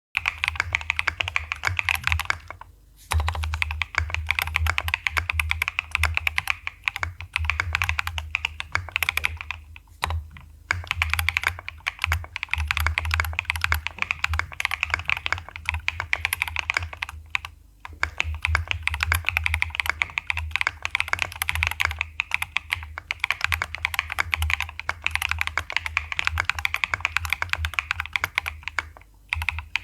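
Fast typing on a Kyubi Alice-layout mechanical keyboard, a dense steady run of keystrokes with short pauses about three, ten, seventeen and twenty-nine seconds in.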